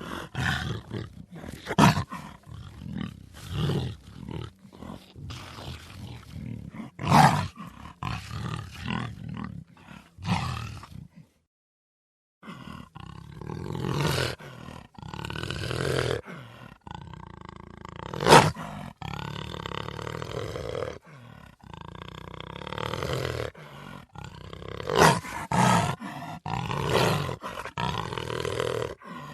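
Big cat roaring in a series of loud, harsh calls, broken by about a second and a half of silence partway through.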